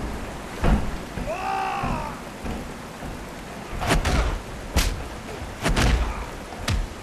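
Film fight sound effects: a string of hard punch impacts, most of them between about four and seven seconds in, over a steady hiss of falling water. A short strained groan comes about a second and a half in.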